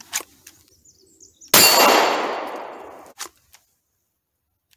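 A single 9mm shot from a Glock 17 pistol about a second and a half in, together with the clang of the steel plate target being hit, which rings on and fades over about a second and a half. A few faint clicks come before the shot.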